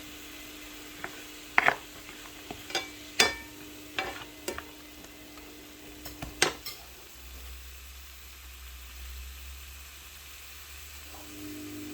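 A spoon stirring spices and onions in a cooking pan, with a dozen sharp knocks and clinks against the pan in the first half and light sizzling of frying.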